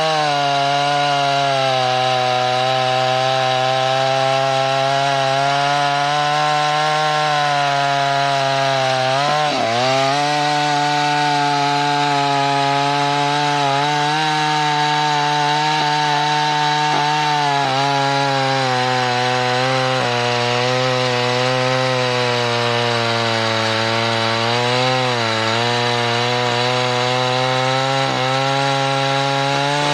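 Vintage Husqvarna two-stroke chainsaw at full throttle, cutting through a large log. The engine note holds steady under load, drops sharply about nine seconds in as the chain bogs in the cut, then picks back up, with a few smaller dips later.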